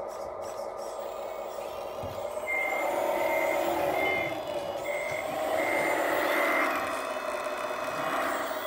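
Reversing beeper of an RC scale Komatsu WA470 wheel loader's sound module, beeping about six times as the loader backs up. Underneath runs a steady engine-like drone that grows louder about two and a half seconds in.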